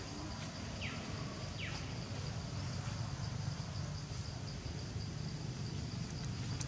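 Outdoor ambience: insects droning steadily in one high tone over a low, steady rumble, with two short falling chirps about one and two seconds in.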